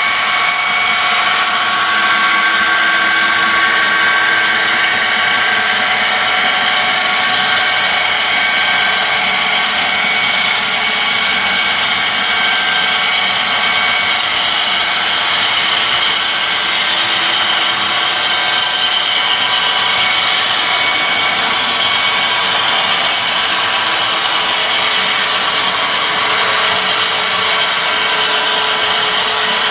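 HO scale model freight train rolling by, a steady mechanical whir of the locomotive motors and the wheels running on the rails. A high whine from the pair of model locomotives is strongest in the first half and fades after about the middle.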